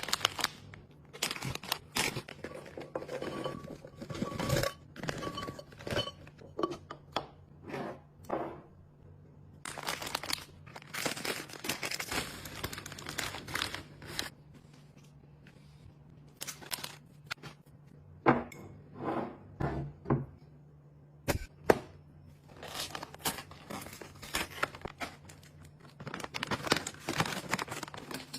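Packaging being handled: plastic crinkling and tearing, with repeated knocks and clicks of containers being picked up and set down. A faint steady hum runs underneath.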